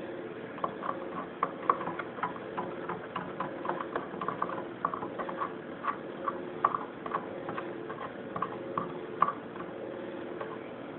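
Irregular light clicks and taps as the wire clips on the electrode plates are handled against the rim of a plastic jar, over a steady low hum. The clicking thins out and stops near the end.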